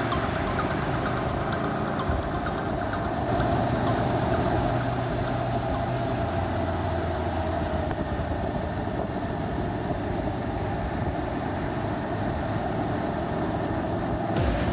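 Motorcycle riding at steady road speed: wind and road noise over the microphone with the engine running underneath.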